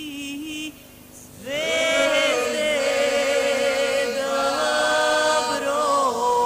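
Vocal music: long held sung notes with vibrato. One phrase ends under a second in, and after a short lull a new one glides up into sustained notes about a second and a half in.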